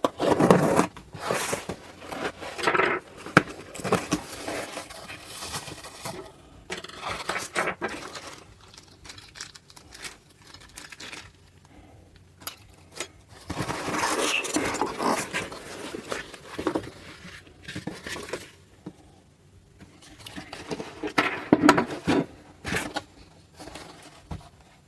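A mailed package being opened by hand: irregular scraping, rustling and crinkling of packaging, with scattered sharp clicks and knocks.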